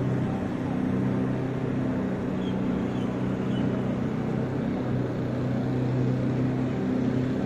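Steady low mechanical hum over a constant haze of city noise, with a few faint high chirps about two and a half to three and a half seconds in.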